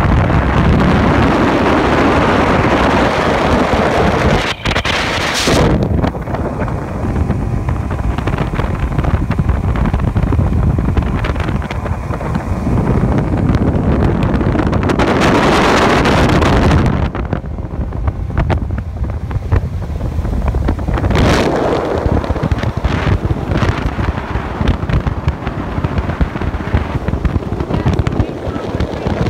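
Wind buffeting a phone microphone over the steady running of a 150 hp Yamaha Pro V two-stroke V6 outboard and the hull on the water, as a bass boat runs at speed, with several louder gusts.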